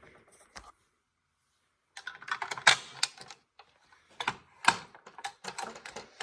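Quick sharp clicks and rattles of a Simplex T-bar fire alarm pull station being handled, no alarm sounding. The sound drops out completely for about a second near the start, then the clicking runs thick until the end.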